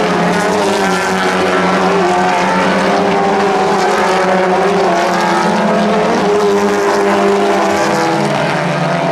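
TCR touring cars' engines running at speed on the circuit: a loud, steady blend of several engine notes, one of which drops in pitch near the end.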